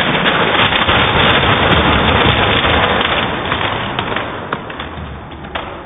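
Plastic magnetic building tiles crashing and clattering down as a stacked tower is knocked over, played back slowed down: a dense, low, crackling rattle of many small impacts that slowly fades.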